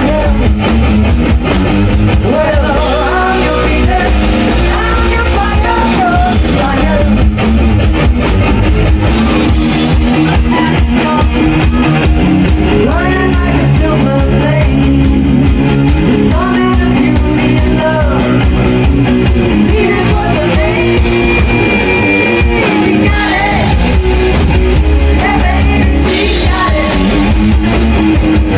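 Live rock band playing loud: a singer over electric guitar, bass and drum kit.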